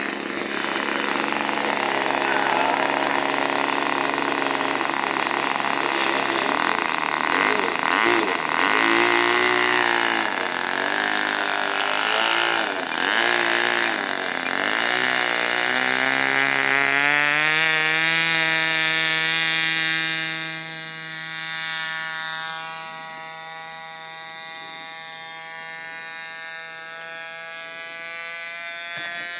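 Model airplane's K&B Torpedo .19 two-stroke glow engine running at high speed, its pitch wavering around the middle as the plane takes off, then holding steady and growing fainter as it climbs away.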